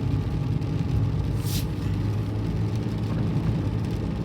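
Steady low rumble of a car's engine and tyres heard from inside the cabin while driving, with a brief hiss about one and a half seconds in.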